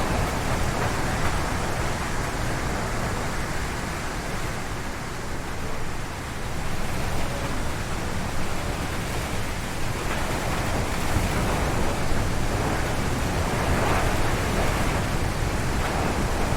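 Strong wind gusting and howling through forest trees, a steady rush with a deep rumble. It eases a little about five seconds in, then builds again.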